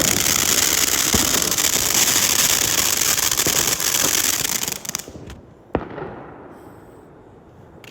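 Fireworks crackling densely, a rapid stream of small pops and hiss, which stops abruptly about five seconds in. One sharp pop follows about a second later, then a few faint scattered pops.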